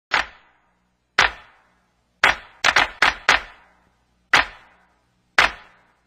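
A series of sharp knocks or hits, about nine in six seconds at uneven spacing, each ringing out briefly before the next.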